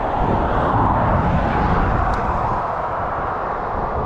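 Road traffic passing close by: a steady rush of tyre and engine noise.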